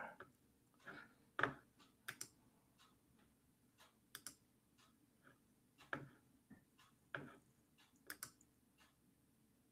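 Faint, irregular clicks from a computer keyboard, one or two a second with short gaps between.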